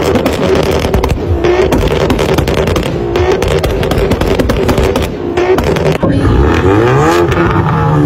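A tuned car's engine revving with its exhaust backfiring in a rapid string of sharp pops and bangs, the exhaust spitting flame. Near the end the engine pitch sweeps up and down as the revs are blipped.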